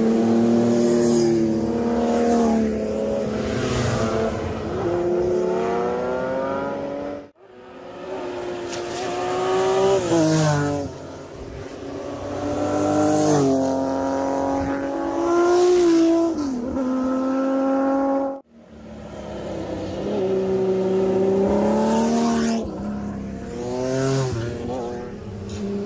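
Three six-cylinder motorcycles, the Kawasaki Z1300, Honda CBX1000 and Benelli Sei, heard one after another, each accelerating with the engine note climbing and then dropping back at the gear changes. The sound cuts off abruptly about 7 seconds and 18 seconds in as one bike gives way to the next.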